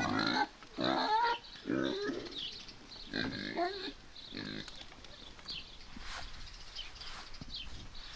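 A hungry farm animal whining for its feed, about five loud pitched calls in the first half. After that come faint, short, high chirps.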